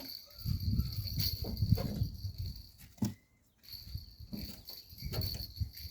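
A steady high-pitched insect trill that breaks off briefly about halfway through, over a low uneven rumble with a few sharp knocks.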